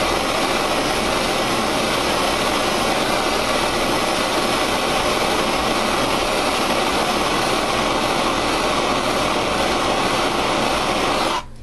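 Handheld gas torch burning with a steady, even hiss as its blue flame heats a pair of thermocouples; the flame is shut off suddenly near the end.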